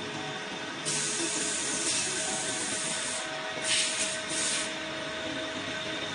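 Metal lathe taking a turning cut on a 1.4301 stainless steel pipe: a steady machine hum with a high cutting hiss. The hiss grows louder from about a second in until past the midpoint, then comes in two short bursts a little later.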